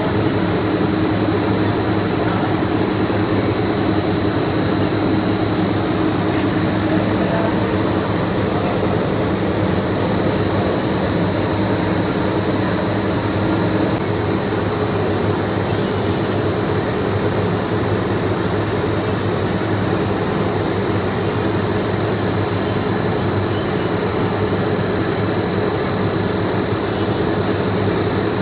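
Factory machinery running steadily, a constant drone with a thin high whine over a lower hum.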